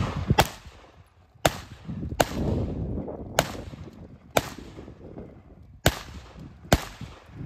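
Seven single rifle shots from a CZ 805 BREN, fired one at a time about a second apart, each followed by a short echo, over a low rumble of wind.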